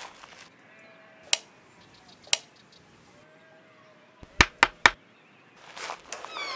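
Knuckles knocking on a wooden door: two single knocks about a second apart, then three quick, louder knocks about four seconds in.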